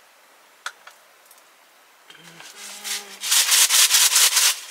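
A plastic bottle crinkling and rasping as it is squeezed and rubbed in the hands: a loud run of rapid crackles starting about three seconds in and lasting about a second and a half.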